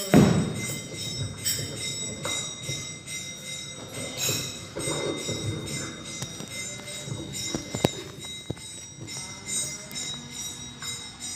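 Instrumental break in a devotional song: jingling percussion keeps a steady rhythm over sustained ringing tones, with a loud hit just after the start.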